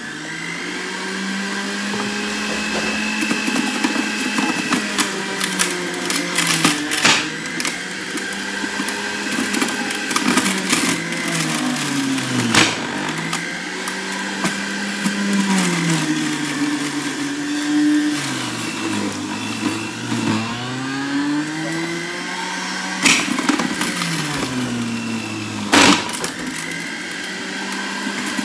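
Electric juicer motor running as carrot pieces are pushed down its feed tube and ground to pulp, its pitch sagging under the load and rising again several times. A few sharp knocks cut through it.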